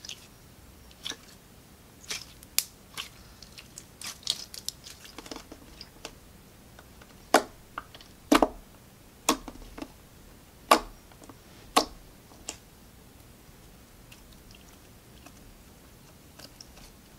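Putty-like store-bought slime (maple syrup and blueberry slimes mixed together) clicking and popping as fingers squeeze, press and stretch it. Scattered sharp pops, the loudest few around the middle.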